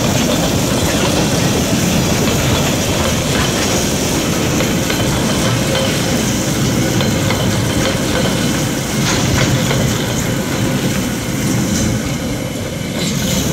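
Freight train of container flat wagons rolling past, steel wheels clicking over the rail joints. The last wagon goes by near the end and the noise begins to ease.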